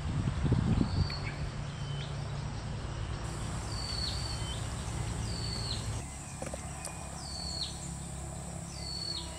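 Outdoor ambience with a high whistled animal call repeating about once a second, each note held and then dropping sharply in pitch, over a steady low rumble. A brief low rustle or bump about half a second in is the loudest sound.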